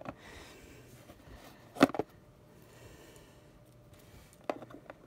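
Light taps and clicks of small plastic figures and their plastic clips being handled and set down on a tabletop. The sharpest tap comes a little under two seconds in, followed by a second one, and a few more come near the end, over quiet room tone.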